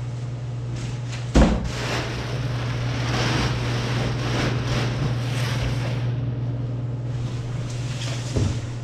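Cardboard packaging being handled and set aside: a sharp thump about a second and a half in, a few seconds of rustling and scraping, and a smaller knock near the end, over a steady low hum.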